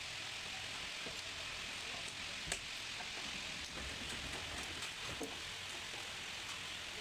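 Steady hiss with scattered light clicks and taps, and one sharper click about two and a half seconds in.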